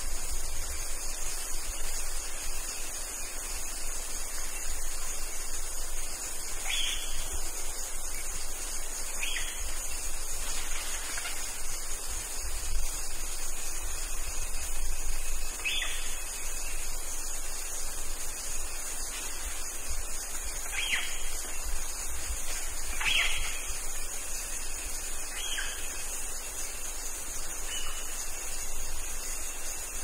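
Midday rainforest ambience: a steady high-pitched chorus of crickets. About eight short, high calls that fall in pitch are spaced a few seconds apart and sound distant.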